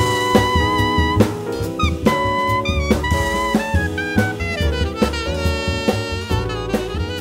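Jazz quartet playing live: tenor saxophone over Fender Rhodes electric piano, double bass and drum kit.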